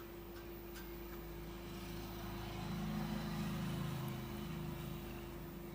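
A vehicle engine passing, swelling to its loudest about three seconds in and then fading, over a steady low hum.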